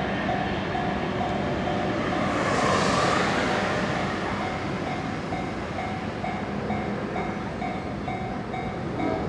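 Japanese railway level-crossing warning bell ringing "kan-kan" over and over at an even pace while a train passes; the rush of the train swells to its loudest about three seconds in, then eases off.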